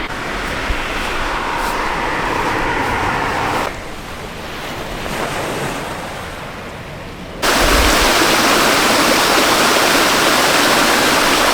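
Steady rushing-water noise in three cut-together stretches: a softer rush, a quieter stretch from about four seconds in, then a much louder, brighter rush that starts suddenly at about seven and a half seconds.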